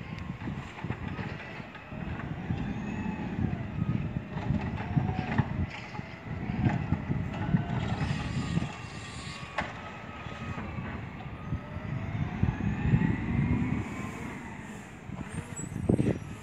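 Garbage truck's diesel engine running, with whines that rise and fall in pitch and a couple of sharp metallic knocks, then the engine note climbing as the truck drives off.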